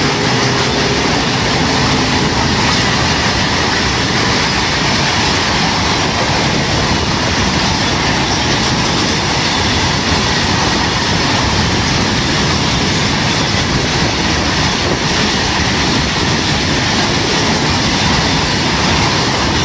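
Freight train's open wagons passing at speed: a loud, steady noise of steel wheels running on the rails, with no letup.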